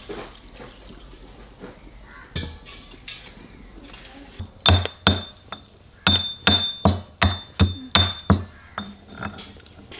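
Pestle pounding spices in a small metal mortar: about nine sharp, ringing metal-on-metal strikes at two to three a second in the second half. Before them come light clinks and a knock as the lid of a brass spice box is lifted and handled.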